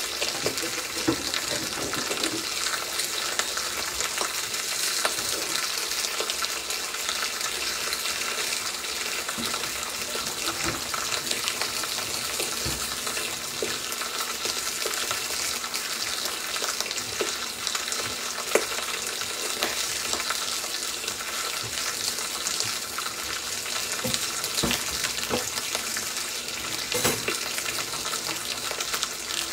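Beef steak sizzling as it sears in a hot pan: a steady frying hiss with scattered pops and crackles.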